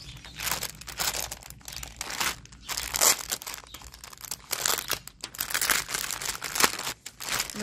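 Thin plastic packaging crinkling and rustling in irregular bursts as hands handle and empty a small bag of embroidery floss skeins.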